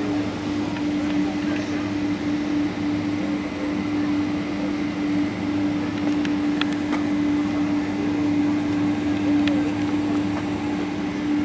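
Steady cabin drone inside a Boeing 767-300ER on the ground, an even hum carrying one strong steady tone, with a few faint clicks about six and nine seconds in.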